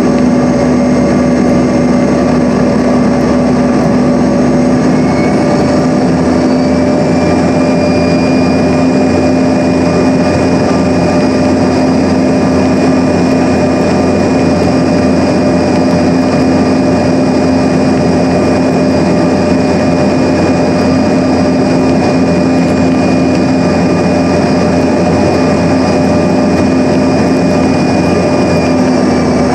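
Inside the cabin of a Bombardier CRJ-200 in flight, its rear-mounted GE CF34 turbofan engines drone steadily over airflow noise, with a constant whine. A higher whine steps up in pitch about six seconds in and drops back near the end.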